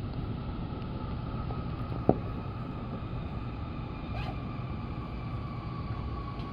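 Cabin running noise of an N700S Shinkansen car on the move: a steady low rumble with a faint whine that falls slightly in pitch, and a single sharp click about two seconds in.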